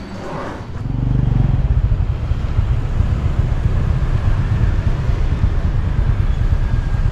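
City street traffic, with motorbikes and cars going past. Wind rumbles on the microphone from about a second in.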